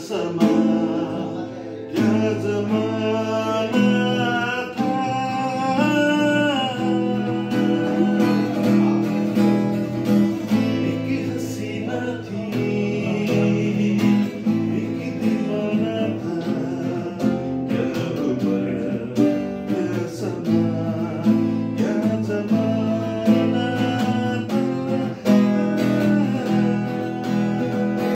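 A man singing a song to his own acoustic guitar, strumming steady chords under a wavering sung melody.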